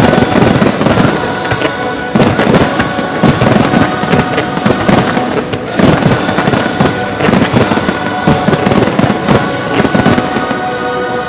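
Fireworks display: aerial shells and ground-fired effects going off in quick, overlapping bangs throughout, over music with held notes.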